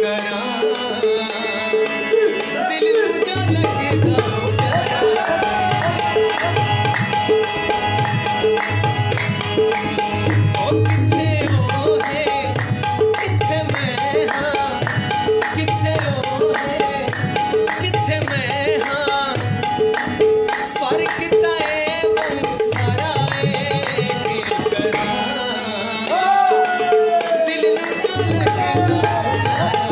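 Background music: a South Asian song with tabla drumming under a melodic voice line. The drumming comes in about three seconds in and drops out briefly near the end.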